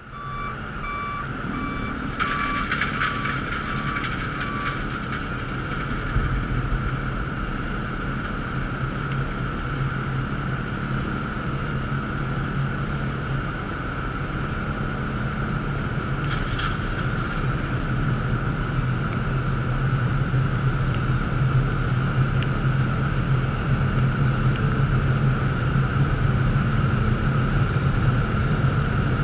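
Pavement milling machine running as it cuts the road surface: a steady engine drone with a higher whine, slowly growing louder as it comes closer. A backup alarm beeps for the first few seconds.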